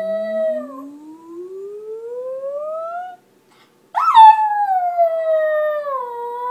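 A small dog howling along to a vocal warm-up: a howl sliding down in pitch at the start, then, after a long upward vocal slide of the warm-up exercise, a louder, long howl from about four seconds in that starts high and slowly sinks.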